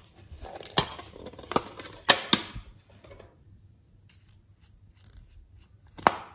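Hard plastic clicks, snaps and rattling from a plastic toy makeup compact and a lip gloss tube being handled. Several sharp clicks come in the first couple of seconds, then faint scattered ticks, and one loud click near the end.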